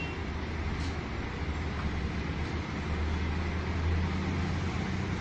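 Road traffic noise: vehicles driving past with a steady low engine hum, which swells as a vehicle comes closer about three to four seconds in.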